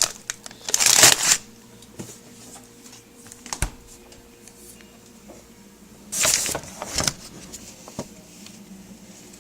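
Things being handled: two short bursts of rustling, about a second in and about six seconds in, with a few light knocks between them.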